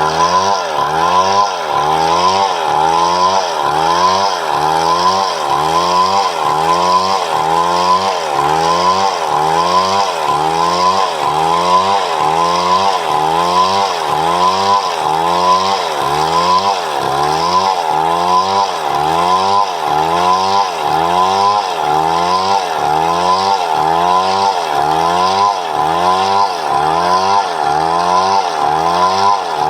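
Chainsaw cutting wood, running continuously, its engine note dipping and rising in an even rhythm about one and a half times a second.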